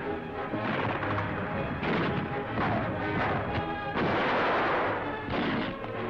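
Gunfire and field-gun shots over orchestral newsreel music, with several sudden heavy reports; the loudest blast comes about four seconds in.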